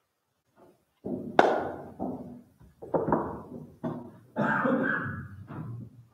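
A series of knocks and thuds as things are handled and put away at a wooden reader's stand: the sharpest about a second and a half in, then several more, and a steadier sound of about a second near the end.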